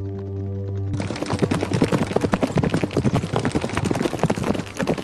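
A held music chord for about a second, then a wildebeest herd stampeding: a dense, fast clatter of many hooves pounding the ground.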